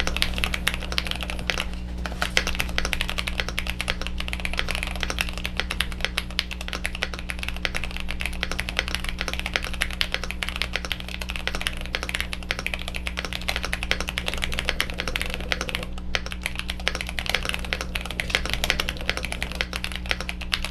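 Fast continuous typing on a Cherry Xtrfy Pixiu 75 mechanical keyboard: a dense clatter of keystrokes at a rapid, uneven pace, pausing briefly about two seconds in and again near the end.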